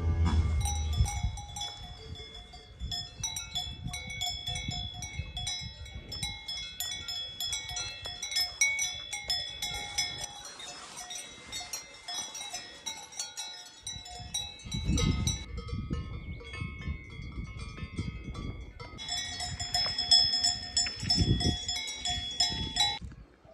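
Several livestock bells clanking irregularly and overlapping, each strike ringing on. A couple of low thuds come in past the middle and again near the end.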